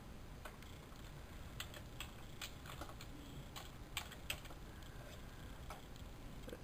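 Computer keyboard keystrokes as a search is typed: a dozen or so faint, irregular clicks, two or three a second, over a low steady hiss.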